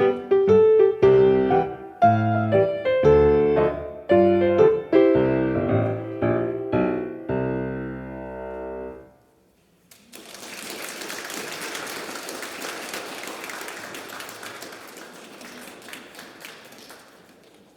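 Piano playing the last bars of a piece, ending on a held final chord that stops about nine seconds in. After a second's pause an audience applauds for about seven seconds, fading out near the end.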